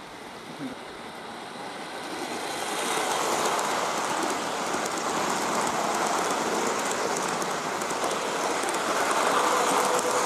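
Gauge 1 model train with Pullman coaches rolling along garden railway track: a steady rattle of wheels on rail that grows louder over the first few seconds as it draws near. Near the end a thin steady hum joins in as the electrically powered locomotive passes close.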